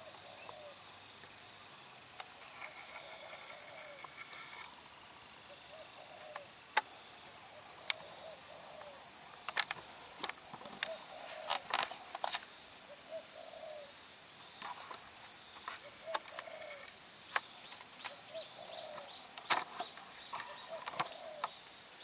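A steady, high-pitched insect chorus, with a dove cooing softly again and again every few seconds under it, and scattered sharp clicks.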